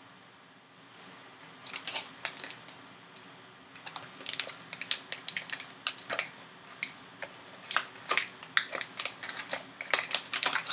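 Sealed foil pouch crinkling and crackling as hands pull it apart at the seal. After a quiet start, a dense run of sharp crinkles begins about two seconds in and continues in quick clusters.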